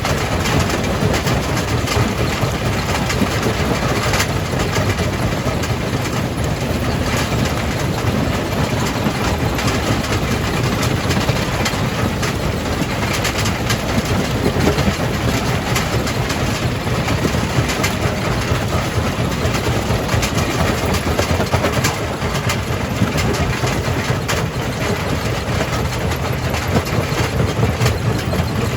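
Jaw crusher running and breaking rock: a steady, heavy machine rumble with a constant scatter of knocks and clatter from the stone.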